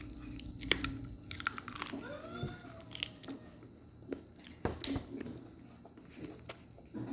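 Quiet eating at a table: chewing with scattered light clicks and taps. A brief pitched sound rises and falls about two seconds in.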